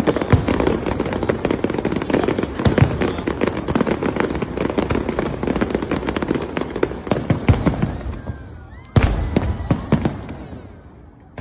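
Fireworks display: a dense barrage of rapid crackling and bangs that thins out after about eight seconds, then one loud shell burst about nine seconds in, followed by crackling dying away.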